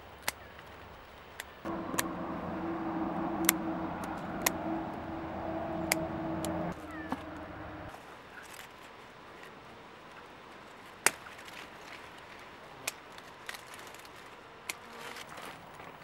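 Scattered sharp clicks and snaps among the vine leaves and stems as grapes are picked by hand. A steady engine hum starts about two seconds in and cuts off about halfway through.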